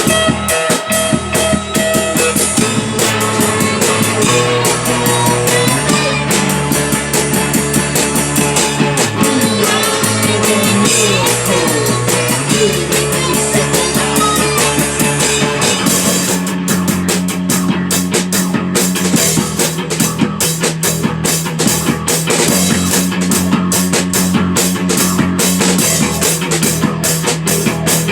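Rock band playing live: drum kit and guitars over low, held bass notes. About halfway through the drumming settles into a steadier, denser beat under longer bass notes.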